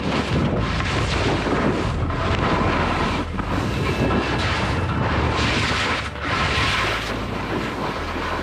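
Wind rushing over the camera microphone and skis hissing through powder snow on a fast steep descent, swelling and easing with the turns.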